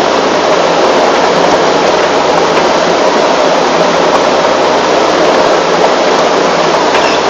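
Cassava root washing machine running: a loud, steady mechanical noise that does not let up.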